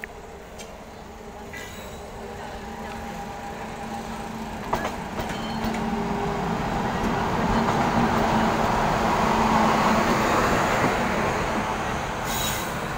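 Electric locomotive hauling a passenger train approaching and rolling slowly past close by, its steady hum and wheel-on-rail noise growing louder as it nears and passes. The coaches follow, and there are sharp clicks from the wheels near the end.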